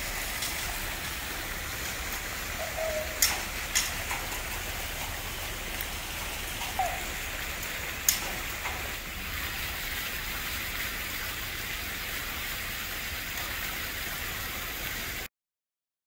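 A steady rushing hiss, like rain or flowing water, with a few sharp clicks in the first half; it cuts off suddenly near the end.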